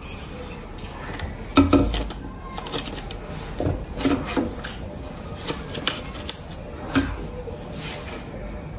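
Irregular clicks and knocks of tools and small electrical parts being handled and fitted, a few sharper knocks standing out.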